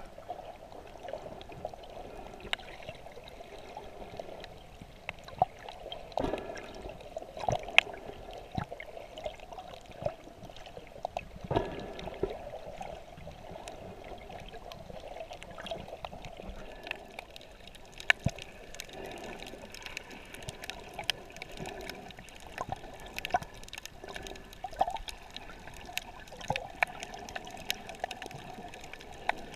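Sea water heard from a camera held underwater: a steady, muffled gurgling wash with scattered sharp clicks and pops throughout.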